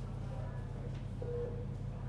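Hospital ward ambience: a steady low hum with faint background noise, and one brief faint tone a little over a second in.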